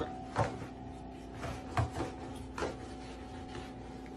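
A flat mop and its pole knocking and scraping against the bottom of a refrigerator and the floor: several short knocks in the first three seconds, the first the loudest, over a steady hum.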